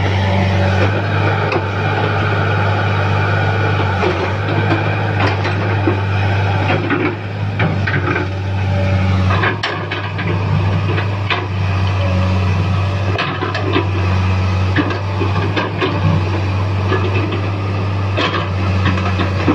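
Tracked hydraulic excavator working rocky soil: its diesel engine runs steadily under load, with frequent clanks and scrapes of the steel bucket against stones as it digs and dumps.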